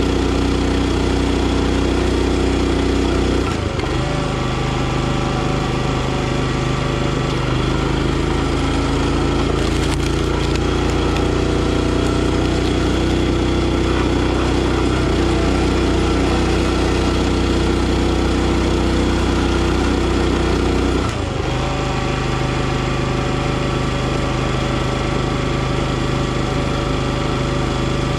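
Gas engine of a NorthStar 37-ton hydraulic log splitter running steadily. Its note changes about three and a half seconds in and changes back around twenty-one seconds, while the splitter's ram is worked on a log.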